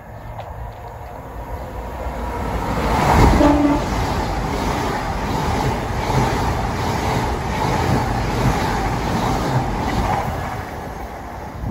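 A train passing close by: its rumble builds to a peak about three seconds in, holds steady, and eases off near the end.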